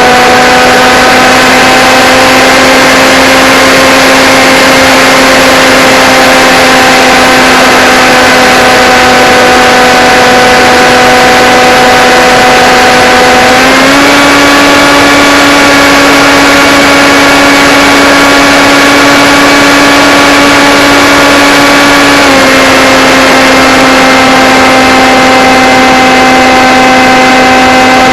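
Blade Theory Type W quadcopter's brushless motors and propellers whining steadily over a rushing hiss, very loud throughout. The pitch steps up about halfway through, holds for several seconds as the throttle is raised, then drops back.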